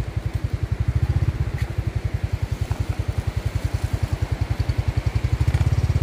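Motorcycle engine running at low speed, a steady rapid low pulse that grows a little louder near the end.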